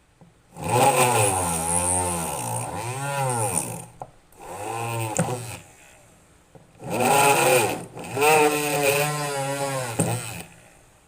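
Homemade 12 V drill driven by a 555 DC motor, run in about four bursts with short pauses between, its pitch rising and falling as the motor speeds up and slows down.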